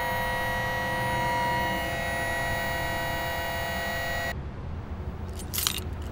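Steady machine hum with several high whining tones over a low rumble; the tones cut off abruptly about four seconds in, leaving the rumble and a few short hisses.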